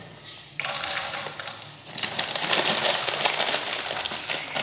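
Plastic packet crinkling as it is handled and pulled open, an irregular crackle of small clicks that starts suddenly about half a second in and dips briefly partway through.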